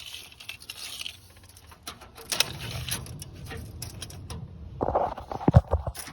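Steel tape measure being pulled out and handled: light metallic rattling and clicks, with a few sharper knocks about two and a half seconds in and again about five seconds in.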